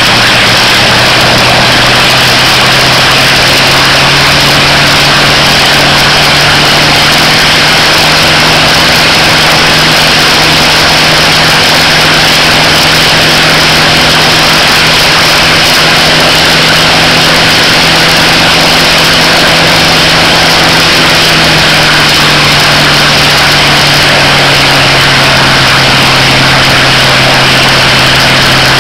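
Rare Bear's Wright R-3350 radial engine, with its four-blade propeller, running at a high power setting during a ground run, loud and steady. Its note rises slightly just after the start and drops a step about three-quarters of the way through as power comes back a little.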